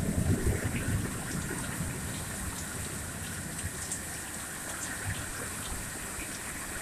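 Steady rain with water running and gushing, and scattered small ticks of drops landing. A low rumble dies away about a second in.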